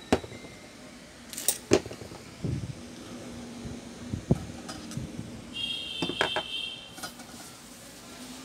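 Sharp metal clicks and knocks as a tool and the parts of an electric fan motor are handled and fitted together. About six seconds in, a high-pitched metallic squeak lasts about a second.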